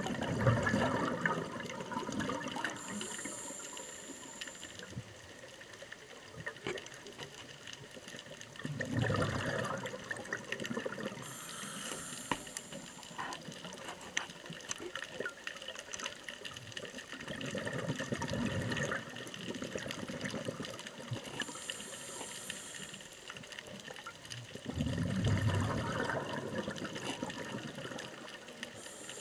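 Scuba diver breathing through a regulator underwater. Each breath is a high hiss on the inhale and then a low rush of exhaled bubbles, repeating about every eight seconds, four breaths in all. Faint underwater crackle lies between the breaths.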